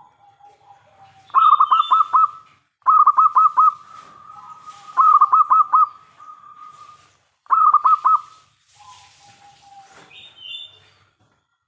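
Zebra dove (perkutut) singing its cooing song: four loud phrases of quick, rolling coo notes, with softer, lower drawn-out coos between them.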